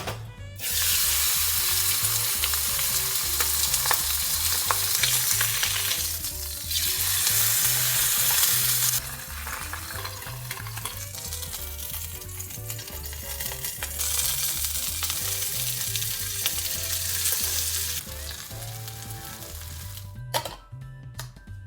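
Food sizzling as it fries in oil in a pan, in several stretches that change abruptly, with soft background music underneath. A few clicks come near the end.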